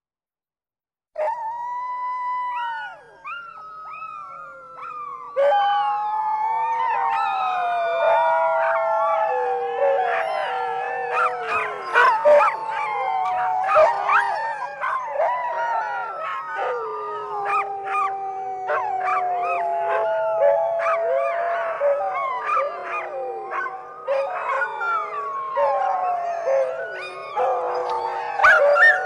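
A chorus of howling canines. A single long howl starts about a second in, and from about five seconds in several long howls overlap, with short yips mixed in.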